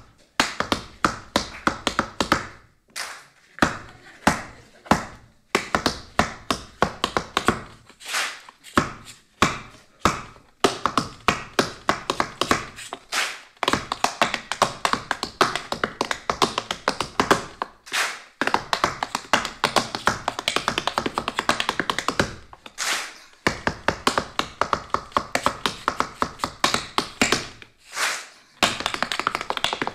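Tap shoes striking a wooden stage floor in a solo tap dance: fast, dense runs of heel and toe taps broken by brief pauses every few seconds, with no band audible.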